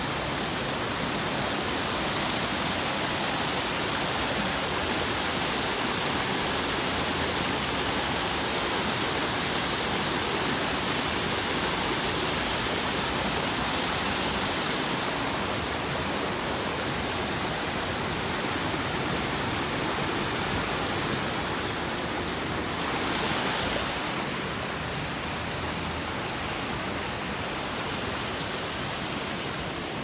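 Steady rush of water, an even hiss without a break. It eases slightly about halfway through and swells briefly about three quarters of the way in.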